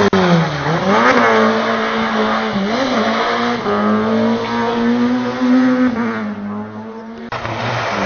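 Peugeot 106 rally car's engine: the revs drop sharply off the throttle, pick up again, then hold fairly steady with small blips as the car slides through the bend, with a hiss of tyres on loose gravel. Near the end the sound cuts abruptly to another car.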